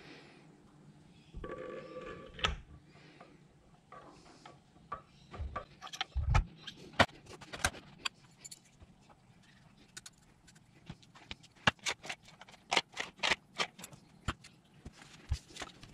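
Metal parts and hand tools being handled while a 12-volt anchor winch motor's armature is set into its housing: a brief rubbing ring early on, a dull thump about six seconds in, then a long run of sharp metallic clicks and clinks.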